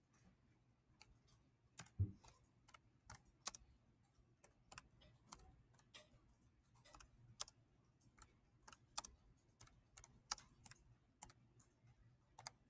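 Slow, irregular typing on a computer keyboard: faint separate key clicks, with one heavier thump about two seconds in.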